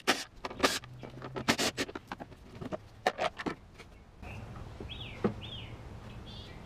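Irregular clicks, knocks and clatter of plastic and metal parts being handled as a car's engine-bay ECU box cover and its bracket are unclipped and lifted out, stopping about four seconds in. A steady low hiss follows, with a bird chirping twice about five seconds in.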